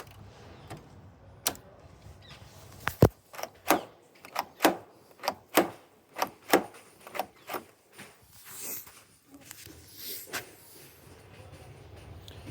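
A newly fitted mechanical push-button combination lock and its latch being worked over and over, making about a dozen sharp clicks and clacks, two or so a second. The lock is still stiff and is being worked to loosen it up. Two softer rushing sounds follow near the end.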